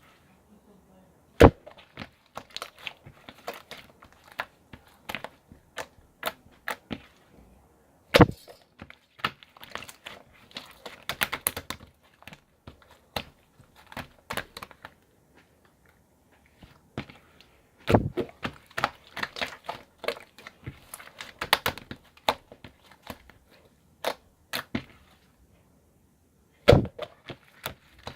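Handling noises: four loud sharp knocks among many lighter taps, clicks and crinkling.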